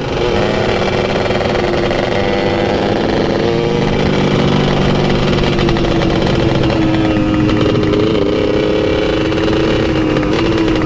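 Motorcycle engine running steadily at an even pitch, with a small wobble in pitch near the end.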